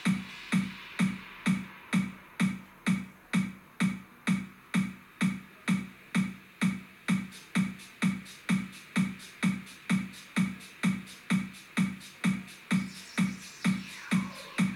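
Electronic music with a steady drum-machine beat, a little over two beats a second, and a held synth tone over it.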